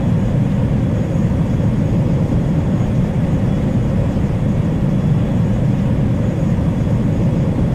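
Steady low rumble of jet aircraft engines, even in level throughout.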